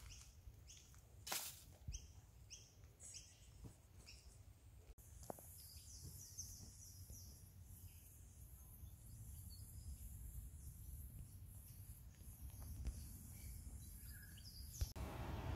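Faint bushland ambience: small birds chirping and calling repeatedly. From about five seconds in, a steady high insect drone joins them.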